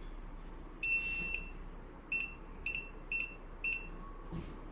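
Wireless home alarm system's buzzer beeping: one long high beep of about half a second, then four short beeps about half a second apart. These are the alarm's confirmation beeps as the remote control is paired and tested.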